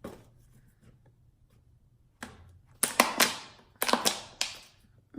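A series of sharp knocks and clicks, about eight, bunched together in the second half: hands handling a cut-down plastic bottle and a block of air-dry clay while building up the base of a homemade volcano.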